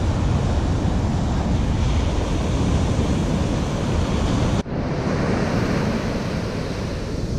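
Rough ocean surf washing and breaking on the beach, with wind buffeting the microphone. The sound drops out for an instant about two-thirds of the way through.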